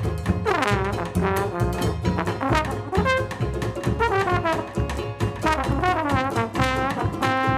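Small traditional jazz band playing, with the trombone taking the lead in sliding smears over a banjo, double bass and drum kit keeping time.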